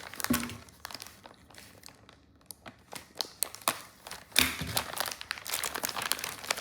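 Plastic packaging crinkling as a bag of nylon cable ties is opened and handled. It is dense at first, drops to scattered crackles in the middle, then grows loud again near the end.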